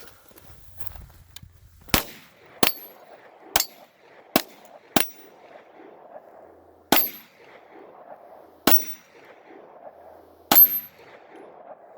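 Eight pistol shots fired at uneven intervals: five in quick succession over about three seconds, then three spaced about two seconds apart.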